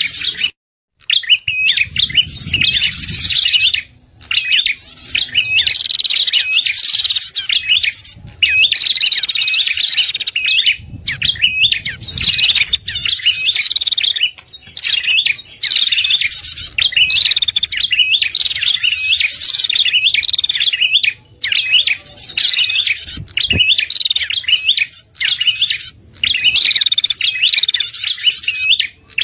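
Prenjak kepala merah lure song (suara pikat): fast, high chirping phrases repeated over and over with short breaks, used to draw in wild prenjak. A faint steady high whine runs behind it.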